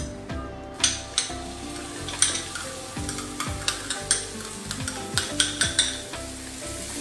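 Chopped onion tipped into a hot frying pan, starting to sizzle about a second in, with a spoon scraping and clicking against the bowl and pan as the onion is pushed out.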